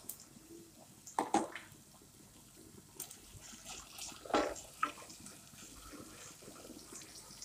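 Wooden spatula stirring and scraping chicken pieces around a nonstick saucepan, in a few separate scrapes, the loudest about a second in and a little after four seconds.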